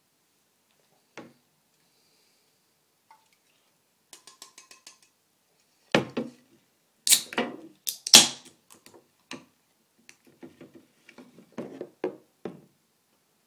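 A beer being opened and poured into a tall glass. First come light clicks and a quick rattle of small clicks. Several loud, sharp bursts of hiss and clatter follow around the middle, then a string of short glugs and splashes.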